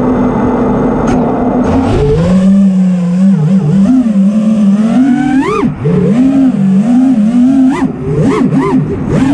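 FPV racing quadcopter's brushless motors and prototype lightweight HQProp propellers, heard from the onboard camera. They hum steadily while the quad is armed on the ground, then jump up in pitch about two seconds in as it takes off. After that comes a series of rising and falling whines as the throttle is punched and eased.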